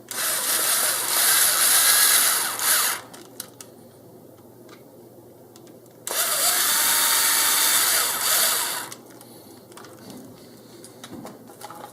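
Cordless power screwdriver running twice, about three seconds each time, driving two M3 screws through the bumper brace and block into an RC car's differential housing.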